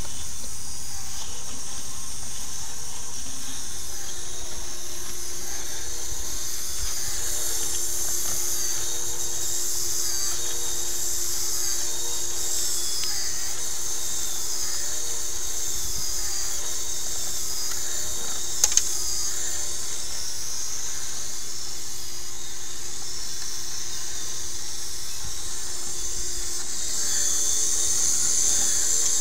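A small electric motor running steadily with a high-pitched whine over a steady lower hum. Two sharp clicks come about two-thirds of the way through.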